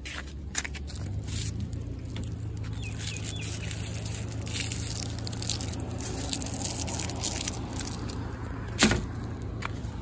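Cardboard board-game boxes and a plastic bag being handled: rustling and small clicks over a steady low hum, with one sharp knock near the end.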